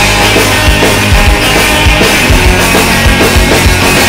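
Punk rock band recording: a full band with a drum kit, playing loud and driving.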